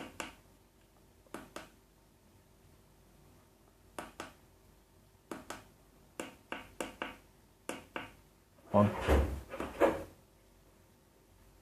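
Push buttons on an egg incubator's digital controller being pressed: a series of about a dozen short clicks at irregular intervals as the menu is stepped through.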